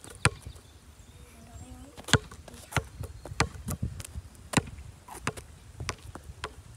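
A basketball dribbled on asphalt: sharp single bounces at an uneven pace, about every half second to a second.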